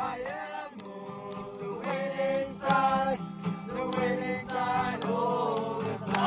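Music with singing: held, sliding sung notes over a steady low hum.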